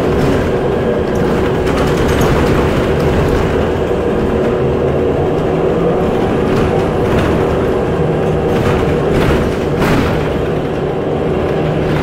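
Interior of a moving city transit bus: steady engine and road noise with a constant hum, and a few rattles in the second half.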